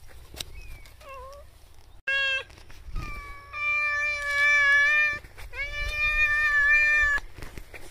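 A domestic cat meowing: a faint short meow about a second in, a short sharp one at about two seconds, then two long, drawn-out meows back to back.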